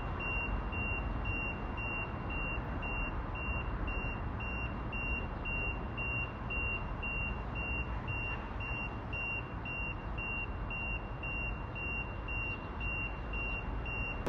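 Electronic warning beeper sounding one steady high tone, on and off evenly nearly three times a second, like a vehicle's reversing alarm. It plays over a steady low rumble of railway and city background noise.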